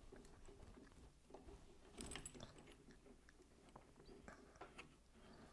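Faint clicks and scrapes of a coaxial cable and its connector being handled and fitted at the antenna's tuner box, with a slightly louder rattle about two seconds in.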